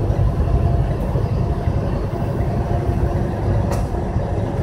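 Steady low rumble of a truck's engine and road noise heard inside the cab at highway speed, with one brief click a little before the end.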